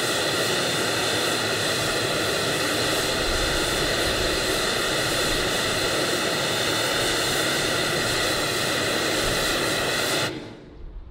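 Steady broadband test noise, a loud even hiss, played through a single TOA CS-760 line-array horn speaker and picked up 35 metres away, reading about 88 dB SPL at the meter. It starts abruptly and cuts off suddenly about ten seconds in.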